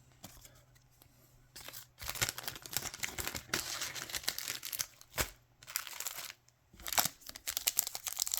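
Foil trading-card pack wrapper crinkling and tearing as a pack is opened, with a sharp click about five seconds in.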